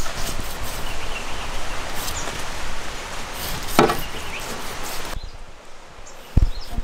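Knife scoring a large fish: a few sharp cutting knocks over a steady hiss of outdoor noise, which drops away abruptly about five seconds in, leaving a couple of low thumps.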